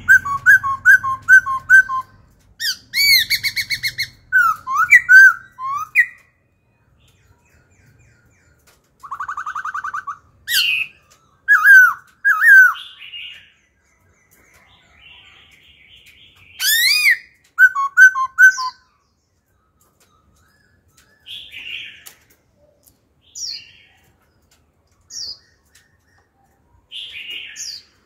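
Black-throated laughingthrush singing: loud, varied phrases of repeated whistled notes, fast trills and rising and falling glides, switching constantly from one kind of phrase to another with short pauses between. The last third holds only shorter, quieter single notes.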